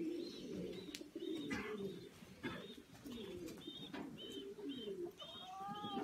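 Domestic pigeons cooing, several overlapping, with repeated short high chirps from another bird over the top.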